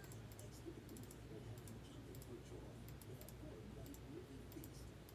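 Faint, scattered clicks of a computer mouse and keyboard over a low steady room hum.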